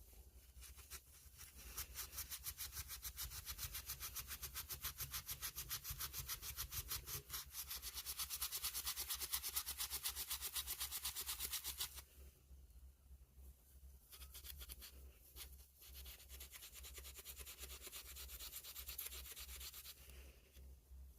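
Rapid back-and-forth hand rubbing on a pocket knife, several strokes a second, steady for about ten seconds and then stopping. After a short pause it resumes more softly.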